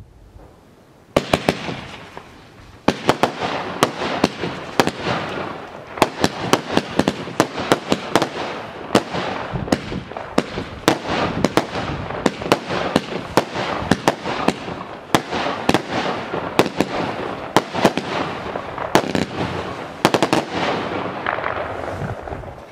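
Comet Extasy (Red Goose) 25 mm, 30-shot firework battery firing: a rapid series of loud bangs as red and blue report stars burst in quick succession, starting about a second in. Near the end the bangs come in a tight cluster.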